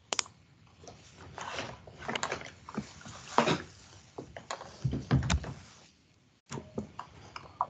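Irregular clicks, knocks and rustling handling noise picked up by a video-call microphone, with the line cutting out to dead silence for a moment about six seconds in.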